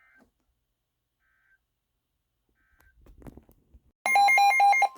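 A loud burst of rapidly stepping electronic data tones, about a second long, starts near the end: the data header that opens an Emergency Alert System broadcast. Before it there are only a few faint short blips and a brief low rumble.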